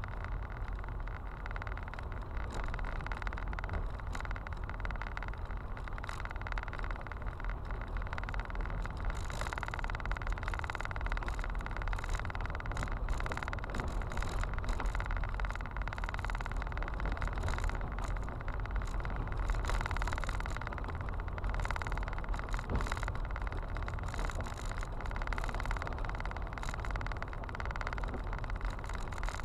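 A car driving on an unpaved gravel road, heard from inside the cabin: a steady low road rumble with frequent short clicks and ticks from the stones under the tyres.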